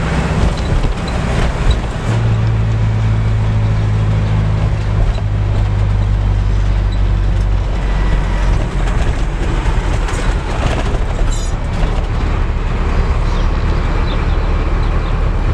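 Car engine and road noise heard from inside the moving car's cabin, a steady low rumble; the engine note changes about two seconds in and again near eight seconds.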